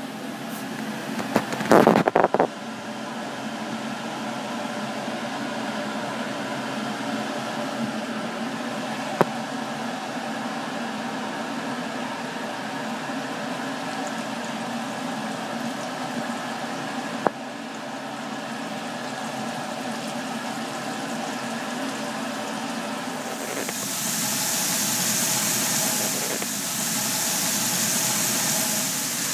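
Beef patties frying in oil in a frying pan over a steady hum, with a brief loud clatter about two seconds in. Near the end a louder, close, high sizzle takes over.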